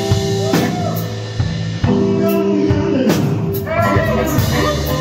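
Live band playing a slow blues. Drum kit with cymbal strikes, under electric guitar and bass, with notes sliding up and down in pitch.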